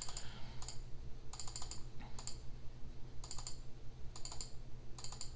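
Computer keyboard keys typed in short bursts of a few clicks at a time, over a low steady hum.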